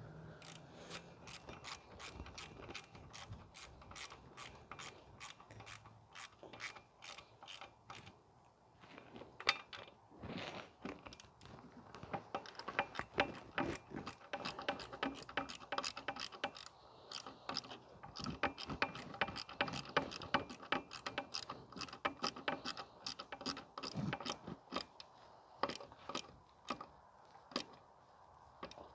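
Hand ratchet wrench clicking in quick runs of a few clicks a second as bolts are tightened down, with a short pause about a third of the way in and louder clicking after it.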